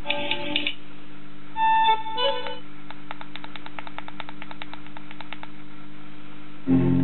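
Continental Edison R43 car radio with a USB-stick player module playing through its loudspeaker: short snatches of music, then a fast run of clicks, with louder playback coming back near the end. A steady low hum runs underneath.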